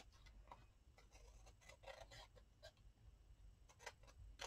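Scissors snipping through baking paper: several faint, irregular snips with light paper rustling.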